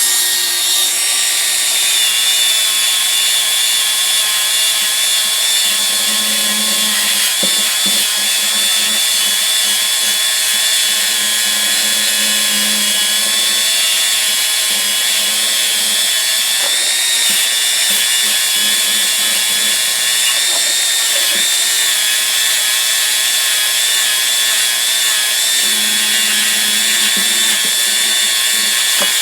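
Bench power tool's abrasive wheel running steadily with a constant high whine and a grinding hiss as steel pliers are held against it to clean them up.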